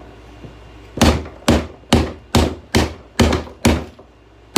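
Repeated hard blows on a plastic 1980s alarm clock as someone tries to break it: about seven sharp thunks at roughly two a second, starting about a second in.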